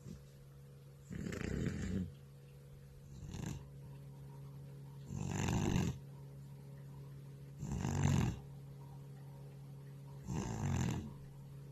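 An old cat snoring in deep sleep: five snores, roughly one every two and a half seconds, one of them short and the middle ones loudest.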